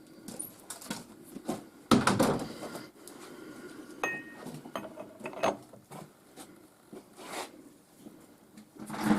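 Metal tools and parts being handled: scattered clicks and clinks, a louder clatter about two seconds in, a brief metallic ring near four seconds, and another clatter near the end.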